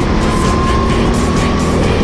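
Background music playing over a go-kart engine running at speed.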